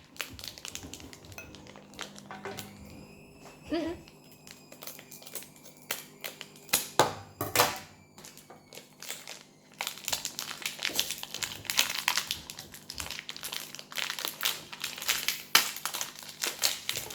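Toy packaging crinkling and rustling as it is handled and unfolded, with a couple of louder knocks partway through. The crackling gets busier and more continuous about halfway in.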